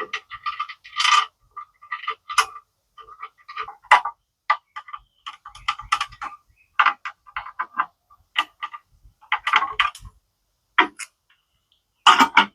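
Irregular metallic clicks, taps and short squeaks of a screwdriver and hand tools working on the screws and parts of a lighting timer's metal box.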